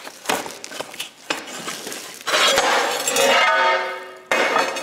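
Large porcelain tiles clinking and scraping against each other as one is pulled from its box. There are a few sharp clicks first, then a long ringing scrape starting a little past two seconds in.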